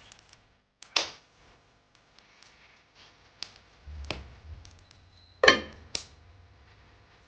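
Several separate knocks and clicks, like objects being handled and set down, the loudest about five and a half seconds in.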